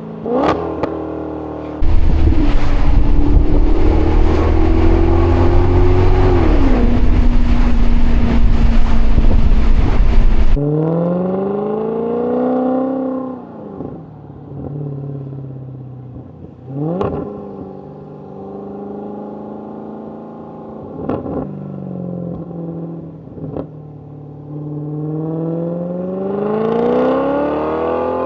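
Maserati GranCabrio's Ferrari-derived 4.7 L V8 on the move, its revs rising and falling through gear changes, with a few sharp cracks. For about the first ten seconds a loud rushing noise with a deep rumble nearly covers the engine. Near the end the revs climb steadily, then drop sharply.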